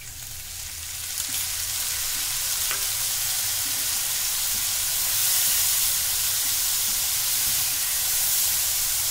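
A water-mixed spice paste frying in ghee with browned onions in a pan: a loud, steady sizzle that builds over the first couple of seconds as the water cooks off and the masala starts to roast. A spoon stirs through it with a few faint knocks.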